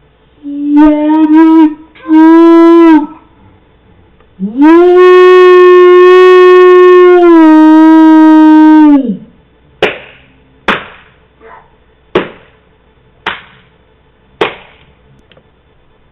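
A person burping loudly, three short voiced burps followed by one long burp held on a steady pitch for nearly five seconds. Then come about six sharp knocks, spaced about a second apart and getting fainter.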